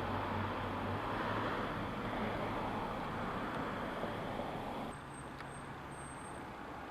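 Steady background rumble and hiss with a low hum, dropping a little at a cut about five seconds in.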